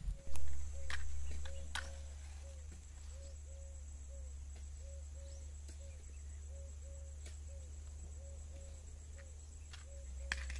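Outdoor farm ambience: a steady high-pitched insect buzz with a short low call repeating about two to three times a second, over a low steady rumble. A few sharp knocks in the first two seconds, the loudest about half a second in.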